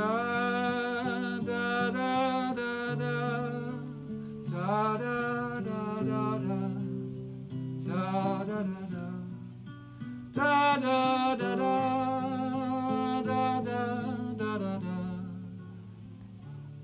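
A man sings long, wavering held notes in several phrases over a strummed acoustic guitar; near the end the voice stops and the guitar goes on alone, softer.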